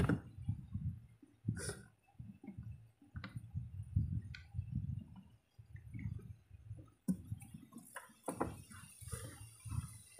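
Faint, scattered clicks and knocks from hands handling parts and a rubber hose in an engine bay.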